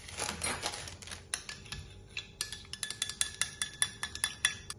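Metal utensil beating an egg-yolk, lemon juice and yogurt glaze in a small glass bowl: soft stirring at first, then from about a second in a quick, even run of clinks against the glass, about six a second, each with a short ring.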